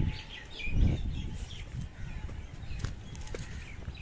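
Small birds chirping repeatedly, with a brief low rumble of wind or handling on the microphone about a second in.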